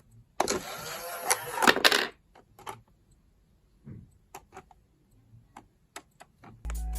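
A small battery-powered mini washing machine's motor runs for about a second and a half with a rattling whirr, then stops, followed by a few scattered small clicks.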